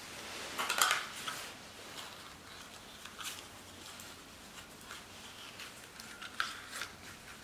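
Plastic clothes hanger clicking and knocking as it is slipped into a football shirt, with the shirt fabric rustling. The loudest cluster of clicks comes about a second in, with a few more near three seconds and another cluster a little after six seconds.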